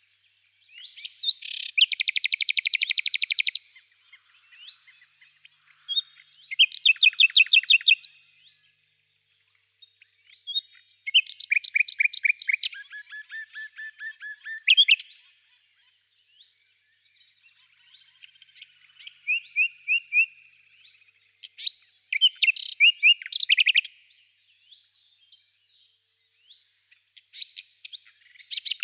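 A songbird singing: about six phrases of fast, high trills and chirps, each lasting one to three seconds, with pauses of a few seconds between them.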